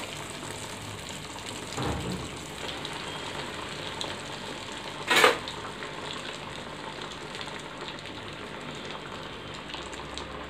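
Breaded chicken nuggets deep-frying in hot oil in an iron kadai: a steady bubbling sizzle. A soft knock comes about two seconds in, and a brief sharp sound about five seconds in is the loudest moment.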